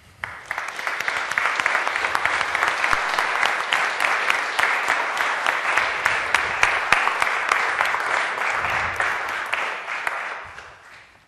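Audience applauding: many people clapping together, starting abruptly, holding steady, then dying away near the end.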